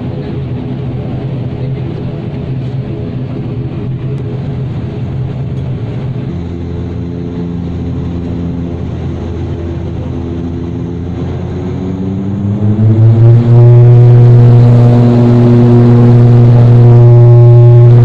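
Propeller airliner's engines droning with a low, even hum, then rising in pitch and becoming much louder about 13 seconds in as power is brought up, and holding there.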